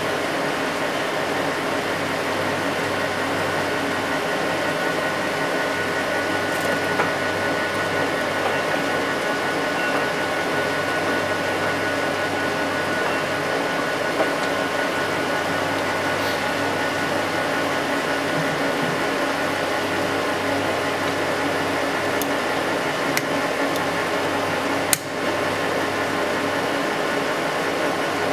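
AMC 1500H crankshaft grinder running, its grinding wheel and workhead spinning the crankshaft, a steady whir with a faint high whine. The wheel is set close to the journal but not yet cutting. There is a sharp click about 25 seconds in.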